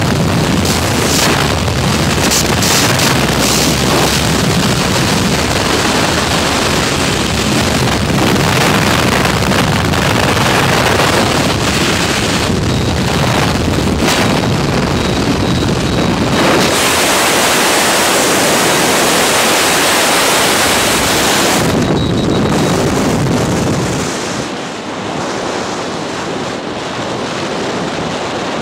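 Skydiving freefall: a loud, steady roar of wind rushing over the camera microphone, easing a little near the end.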